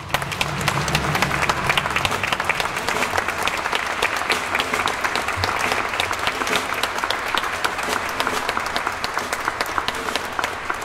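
Audience applauding: many hands clapping densely and steadily, breaking out all at once.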